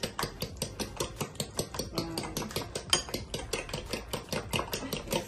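A fork beating eggs by hand in a bowl, clicking against the bowl in a quick, even rhythm of about six or seven strokes a second.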